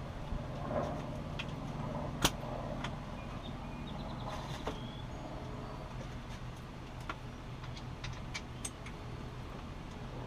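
Scattered light clicks and clinks of tools and mower parts being handled, with one sharp knock about two seconds in, over a steady low hum.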